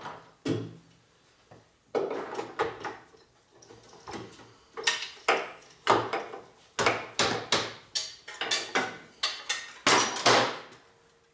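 Hand tools and small metal parts clinking, knocking and rattling irregularly as nuts are fitted on a motorcycle. It is sparse at first, gets busy about two seconds in, and the loudest knocks come near the end.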